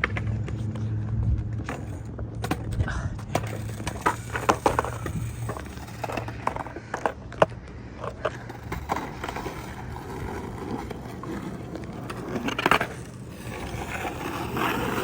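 Skateboard wheels rolling on wet pavement, with repeated sharp clacks of the board hitting the ground; the loudest clacks come about seven and thirteen seconds in.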